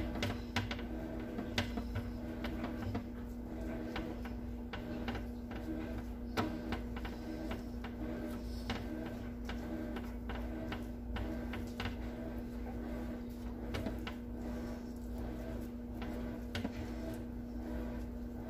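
Basting brush dabbing barbecue sauce onto chicken wings on a wire baking rack, giving small irregular clicks and taps against the rack and pan, over a steady low hum.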